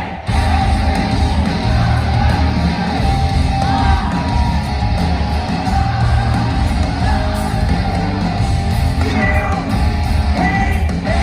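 Hard rock band playing live and loud, with electric guitars and a singing voice. The sound drops out for a moment right at the start.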